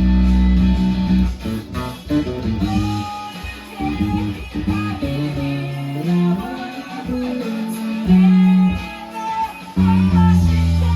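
Instrumental passage of a rock band song with no vocals: electric bass playing low notes under a guitar melody line, the bass hitting hardest at the start, about eight seconds in and near the end.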